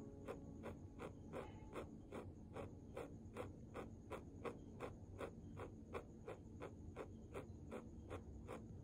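Ballpoint pen scratching on paper in quick, even strokes, about four a second, as it densely shades an area.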